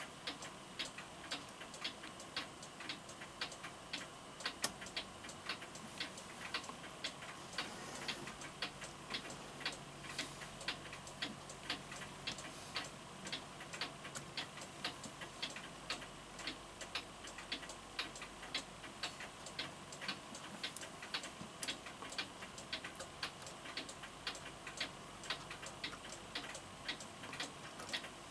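Florenz Kroeber mantel clock movement ticking steadily in an even rhythm, running after its overhaul.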